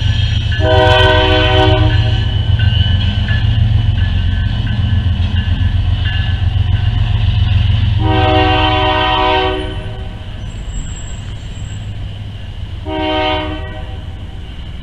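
Chime whistle of Nickel Plate Road steam locomotive 765 sounding three blasts: a long one right at the start, another long one about eight seconds in, and a short one near the end. A steady low rumble runs underneath.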